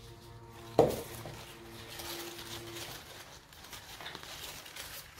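A sharp knock about a second in, then rustling and scraping as potting soil and a plant pot are handled during repotting, over a faint steady hum.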